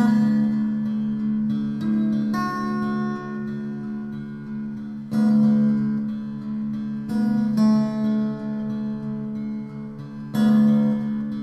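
Acoustic guitar music: chords struck every two to three seconds and left to ring, with picked notes between them.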